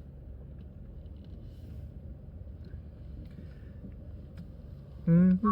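Steady low background rumble, then about five seconds in a man's voice starts a sung, humming-like note that wavers at first and then holds. It is part of a vocal imitation of the Joetsu Shinkansen folk-song melody chime.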